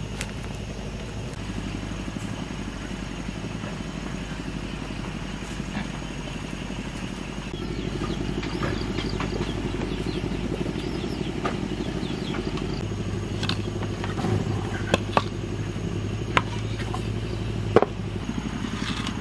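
Steady outdoor background with a low, engine-like hum throughout. In the last few seconds come several sharp knocks, the loudest near the end as a weathered wooden board is laid down onto a stack of boards.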